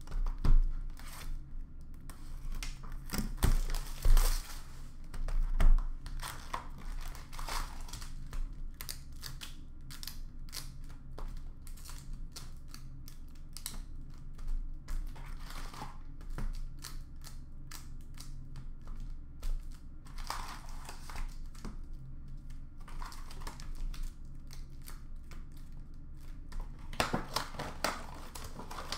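Hockey card boxes being opened and emptied of their foil packs: cardboard and pack wrappers crinkling and tearing, with packs tapping down onto a counter in a quick run of clicks. A few louder thumps come in the first six seconds.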